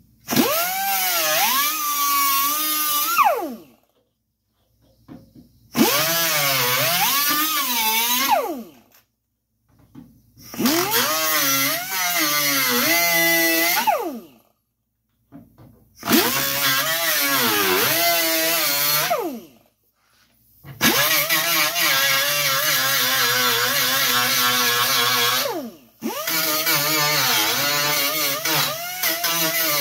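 Angle grinder cutting welded stud pins off a steel truck box side, in about six runs of a few seconds each. Its pitch sags and recovers as the wheel bites into the metal.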